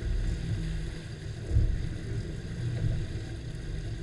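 Twin Suzuki 200 outboard motors idling: a low, uneven rumble, with one louder knock about a second and a half in.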